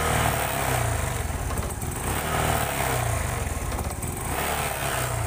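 Honda Supra X 125 FI's single-cylinder four-stroke engine running rough and uneven, its speed rising and falling as it fails to hold a steady idle. It is the sputtering, coughing misfire of a fuel-injected engine that a spark plug check and ECU reset have not cured, which the mechanic suspects comes from wrong cam chain timing.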